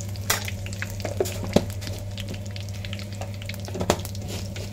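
Cumin seeds and bay leaves sizzling in hot oil in an iron kadhai, the cumin crackling after tempering. Scattered clicks come from a steel spatula stirring and scraping the pan; the sharpest is about a second and a half in.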